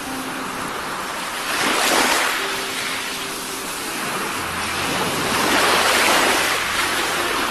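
Small waves breaking on a shallow beach, a steady rushing hiss that swells twice: about two seconds in, and again longer around five to six seconds in.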